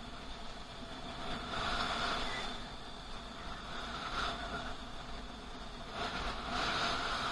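Riding noise picked up by a camera on a moving two-wheeler along a highway: a constant low wind rumble on the microphone under steady road hum, with three swells of louder rushing noise.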